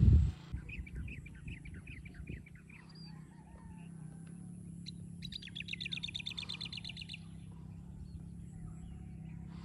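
Birds chirping: a run of short chirps in the first couple of seconds, then a rapid, even trill lasting about two seconds in the middle, over a steady low hum. A brief thump right at the start is the loudest sound.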